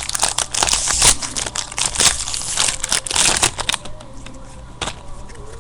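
Trading-card pack wrapper crinkling as it is torn open and handled, with dense crackling that dies down after about three and a half seconds.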